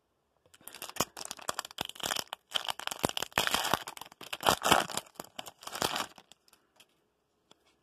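Foil wrapper of a 2016 Optic football card pack crinkling and tearing as it is ripped open by hand. It starts about half a second in and stops about six seconds in.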